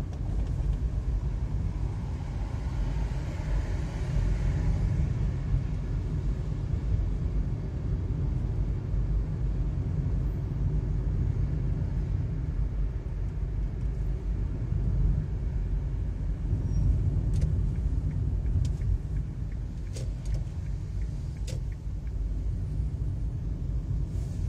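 Steady low rumble of a car's engine and tyres, heard from inside the cabin while driving along a city street, with a few faint clicks in the second half.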